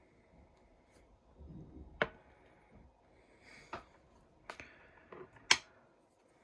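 Handling noise from sonic screwdriver replicas being picked up and set down: a few sharp clicks and taps spread over several seconds, the loudest near the end.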